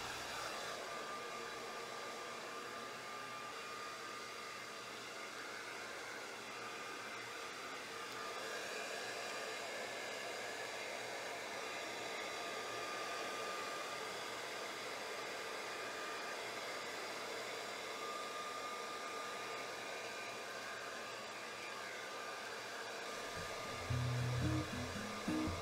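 Handheld hair dryer running steadily, blowing on a wet dog's coat, with a faint high whine that comes and goes. Background music comes in near the end.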